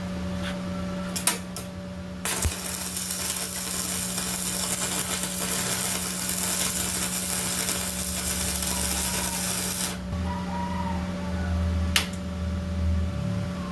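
Stick (MMA) welding arc from a Carbone ARC 175ST inverter welder set to 90 amps: a few sharp taps as the electrode is struck, then a steady crackling hiss for about eight seconds that cuts off suddenly, with a steady hum from the machine underneath.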